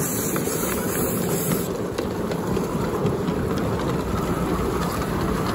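Live-steam model locomotive running along its track: a steady noisy rush with light clicks from the wheels and running gear. A high hiss of steam drops away about two seconds in.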